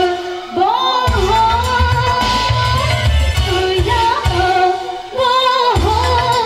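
A woman singing into a microphone over loud amplified backing music with a heavy, pulsing bass beat. The beat drops out briefly twice, just before the first second and about five seconds in, leaving the voice on its own.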